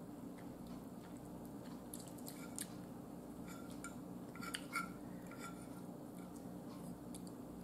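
A metal fork clicking and scraping lightly against a dinner plate a few times, in small clusters about two and a half and five seconds in, over a low steady room hum.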